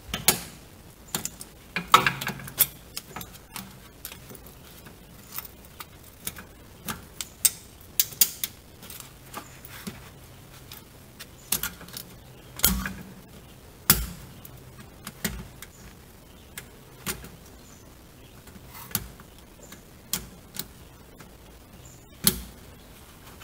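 Irregular metallic clicks and scrapes of a hand tool prying at the steel tabs of a parking brake cable retaining clip, with a few sharper knocks among them.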